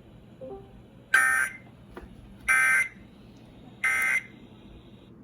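Three short, identical bursts of Emergency Alert System SAME data tones, a harsh two-tone digital buzz, about a second and a half apart over faint hiss. They are the end-of-message code that closes a broadcast alert.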